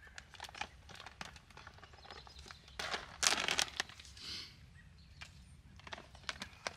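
Plastic snack pouch crinkling as it is torn open and handled, in irregular crackly bursts, the loudest about three seconds in.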